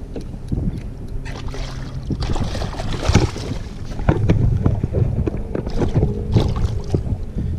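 Wind buffeting the microphone, with water splashing and knocks against the plastic kayak hull as a hooked redfish thrashes alongside.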